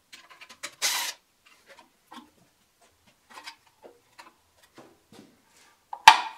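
A cordless driver spins briefly about a second in, backing screws out of a drill press's plastic switch housing. Small clicks and rattles follow as the housing and its wires are handled. A sharp knock comes near the end.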